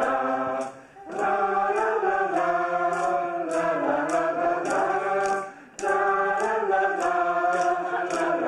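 A group of mixed adult voices sings a melody in unison, in phrases with short breaths about a second in and again near six seconds. Wooden sticks tap a steady beat of about two a second under the singing.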